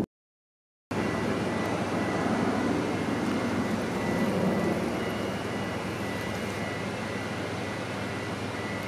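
About a second of silence, then a steady mechanical drone with a low hum and a faint thin whine held throughout, like an engine or machinery running.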